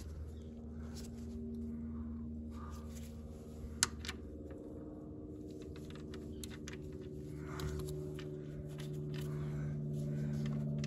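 Clicks of a 14 mm wrench working the oil pan drain plug loose, one sharp click about four seconds in, over a steady hum that grows slightly louder near the end.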